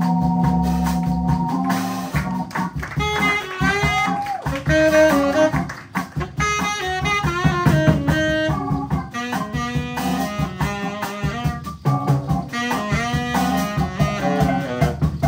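Live jazz band music. Held organ-like chords open it, then give way after about a second and a half to a fast run of single-note melodic lines over bass and drums.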